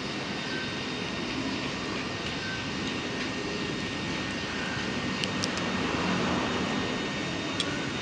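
Steady, even background noise with a few light clinks of a metal fork against a plate in the second half.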